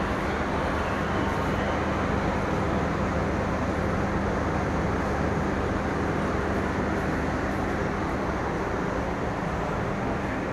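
Steady station din with a constant low drone from a diesel locomotive idling on the tracks below, the drone easing off near the end.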